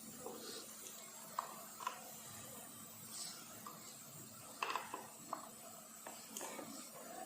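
Faint clicks and taps of small metal parts and hand tools being handled during repair work on a motor wheel, with a few louder clicks close together just past the middle.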